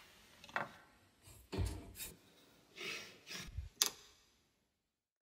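Everyday objects rubbed, scraped and knocked as percussion in a piece for objects: a string of short scraping and rubbing strokes, one with a heavy low thud, then a sharp click, after which the sound stops abruptly.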